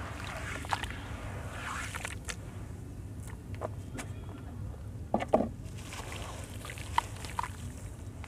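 Hands swishing wet sand and crumbling chunks of white sand cement in a tub of water: a wet swishing at the start, then scattered soft knocks and crumbling crackles, the loudest cluster about five seconds in, over a low steady hum.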